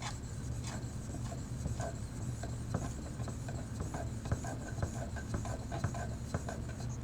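Steel blade of a hair-cutting shear being honed on its inside edge against a 2000-grit sharpening stone: a dry, light scraping made of short, irregular strokes, working the ride line out to the edge.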